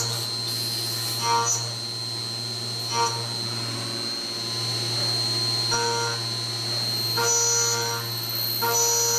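Optimum F100 TC CNC milling machine's spindle running with a steady hum, while the end mill cutting metal gives a ringing whine that comes and goes every second or two.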